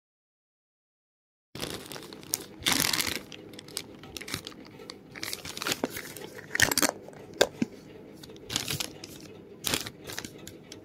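Dead silence for about a second and a half, then close handling noise: small paper stickers and a plastic toy capsule crinkling and rustling in the fingers, with a few sharp clicks.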